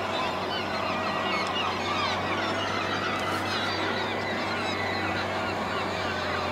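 A flock of gulls calling continually, many overlapping cries, over the steady low drone of a heavy machine's diesel engine working the rubbish.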